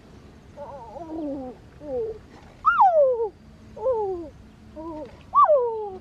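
Young crocodile giving repeated distress calls while held up by the neck: short yelping cries, about one a second, each rising briefly and then falling steeply in pitch. The loudest come about halfway through and near the end.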